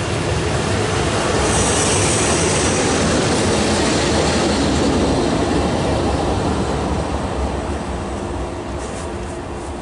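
Electric locomotive ES499.1001 (class 362.001) passing at speed without a train, with a dense rumble of wheels on rail. The noise swells as it goes by, with a hissing high squeal for a second or two soon after the start, then fades away over the last few seconds.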